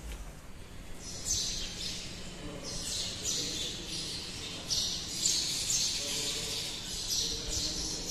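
Birds chirping: short high-pitched calls repeated every half second to a second, starting about a second in.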